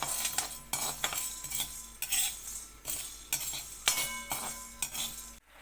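Metal spoon scraping and clinking against a heavy iron kadai while stirring dry-roasting whole spices, about two strokes a second, some with a short metallic ring. It cuts off abruptly near the end.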